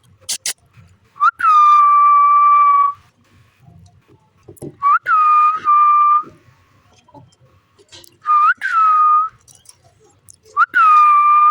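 Four long whistles, each a steady held tone that opens with a quick upward swoop; the second and third break into two joined notes. A short sharp click comes just before the first whistle.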